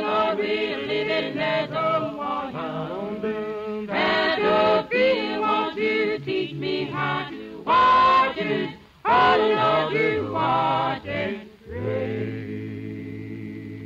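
Closing music: a group of voices singing together, a choral song, ending near the end on a long held chord that slowly fades.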